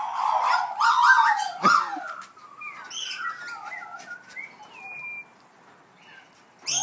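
Australian magpies warbling: loud whistled notes gliding up and down for the first two seconds, then softer, twisting warbled chirps. After a brief lull another loud call starts near the end.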